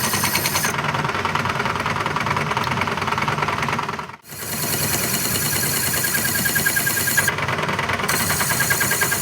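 Workshop machine running steadily with a fast, even rhythm. It cuts out briefly about four seconds in and resumes.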